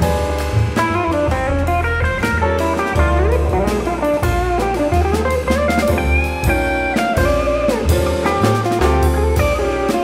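Jazz quartet playing: an electric guitar is to the fore with a melodic line that slides between notes, over piano chords, a plucked double bass walking low notes and a drum kit keeping time on the cymbals.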